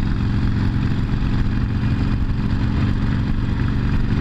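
Harley-Davidson Sportster's air-cooled V-twin engine running at a steady engine speed as the motorcycle cruises, with no rise or fall in pitch.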